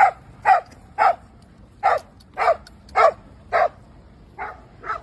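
A dog barking repeatedly: about nine short barks, roughly two a second. The last two barks are fainter.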